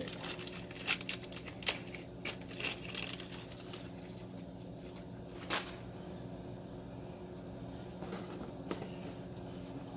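Handling of small plastic cable ties and a wiring harness cable: scattered clicks and rustles, mostly in the first three seconds, with one sharper click about halfway through, over a steady low hum.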